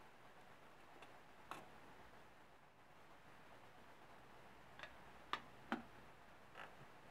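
A few light taps of cookies being set into a metal tin, then a quick pair of sharper metal clicks about five seconds in as the tin's lid is pressed on, over faint room hiss.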